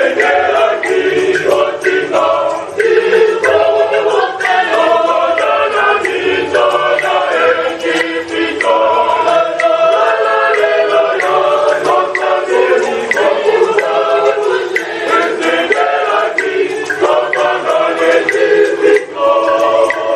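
A large choir singing together in parts, many voices blending throughout.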